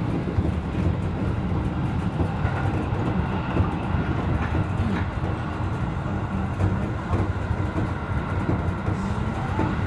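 Seibu 2000N-series electric train running along the track, heard from inside the car: a steady low rumble of wheels on rail with a few faint clicks.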